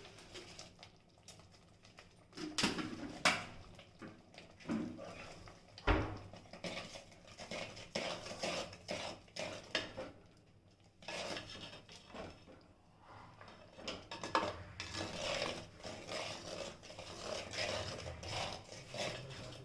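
A metal spoon scraping and clinking against a cooking pan as a thick ground onion-tomato masala paste is stirred, with irregular knocks; the sharpest knock comes about six seconds in.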